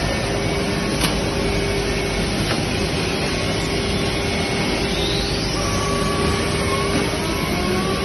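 4-axis CNC aluminium profile machining centre running, a steady mechanical drone with a constant hum. A single click comes about a second in, and a faint whine rises in pitch from about five seconds in.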